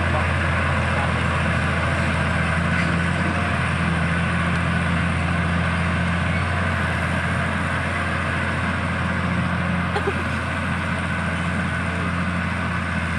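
Heavy diesel machinery engine running steadily with a low, even hum.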